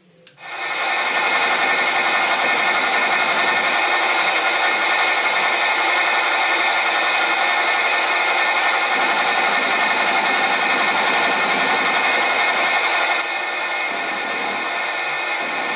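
Sieg SC4 bench lathe starting up and running steadily, a dense whine of many tones, as it turns a boss on a mild steel bar. It gets a little quieter about 13 seconds in.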